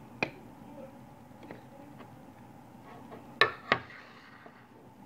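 Small hard objects being set down and handled on a table: a light knock about a quarter-second in, then two sharper clicks in quick succession around three and a half seconds in.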